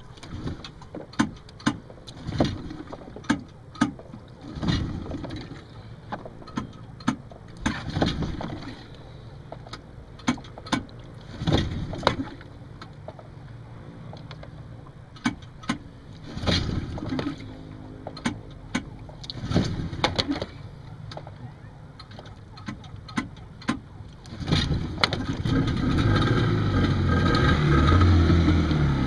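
Yamaha outboard motor being pull-started: repeated pulls of the recoil starter with clicks, knocks and short low surges. About 25 seconds in, the engine catches and keeps running steadily.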